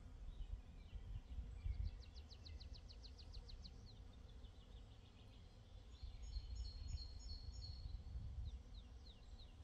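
Faint songbirds singing: a rapid series of short high descending notes about two seconds in, a trill a little past the middle, and a few down-slurred notes near the end, over a low steady rumble.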